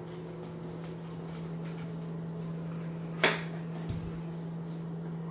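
Chef's knife slicing a red bell pepper on a plastic cutting board: faint cutting strokes and one sharp knock of the blade on the board about three seconds in, the loudest sound. A steady low hum of the microwave oven running underneath.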